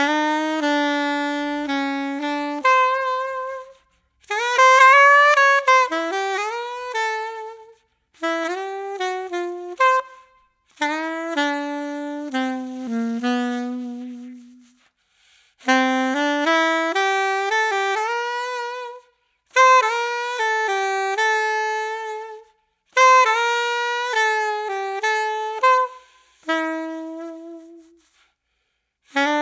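Soprano saxophone with a Jody Jazz HR* Custom Dark mouthpiece (7 tip opening) and a hard 3.5-strength reed, played solo in short melodic phrases with brief breaths between them. The harder reed is there to make the tone darker.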